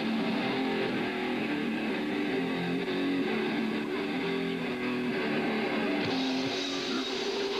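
Live grindcore band playing, dominated by loud distorted electric guitar and bass in a muddy, dense wash; the sound turns brighter about six seconds in.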